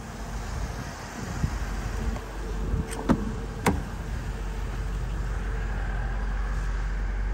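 Front door of a Range Rover Sport SVR being unlatched and swung open: a few sharp clicks about three seconds in, over a low rumble that builds steadily.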